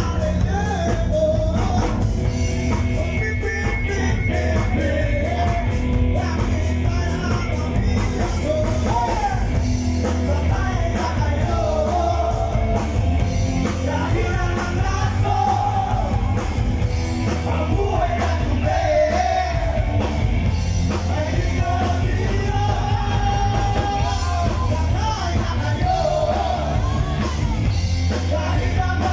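Rock song by a band, a lead voice singing over full band backing with a steady driving beat.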